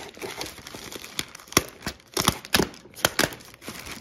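Plastic poly mailer bag being slit with a hobby knife and torn open by hand: irregular crinkling with sharp crackles and snaps.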